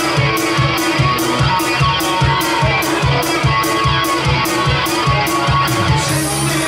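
An electric guitar played live in a steady, driving rhythm of about four strokes a second, with no singing.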